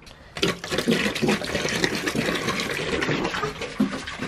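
Water pouring from a plastic gallon jug into a small bucket, a steady splashing rush that starts about half a second in.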